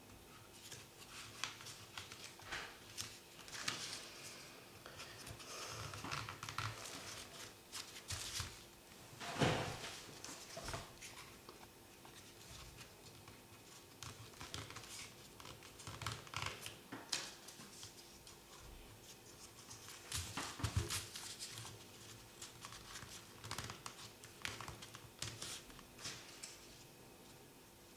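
Folded paper triangles of a 3D origami model rustling, crinkling and scratching as hands press and work them into place: an irregular run of soft paper noises and small clicks, loudest about nine and twenty-one seconds in.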